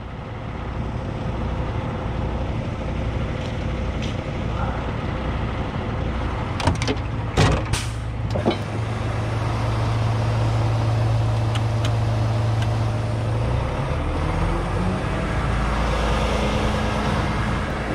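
Heavy-duty wrecker's diesel engine running steadily at idle, with a few sharp knocks and clicks about seven to eight seconds in. About fourteen seconds in, the engine speed steps up and holds at a higher idle.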